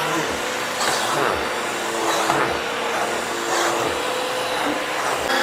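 Bissell CleanView Swivel Pet upright vacuum running steadily, its motor hum swelling and gliding in pitch about once a second.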